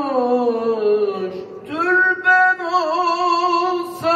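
A man singing a Turkish ilahi (Islamic hymn) unaccompanied into a microphone, drawing a syllable out over long held notes. The first note slides downward, then about a second and a half in he takes up a new note and holds it with a wavering ornament.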